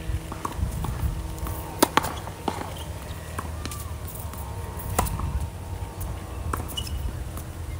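Tennis rally on a hard court: sharp pops of rackets striking the ball and the ball bouncing, every second or two, with some hits louder and nearer than others, over a low steady rumble.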